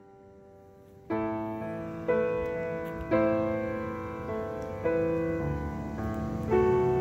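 Slow, soft piano music. A faint held chord fades, then new chords are struck about a second in and every one to two seconds after, each one ringing out and dying away.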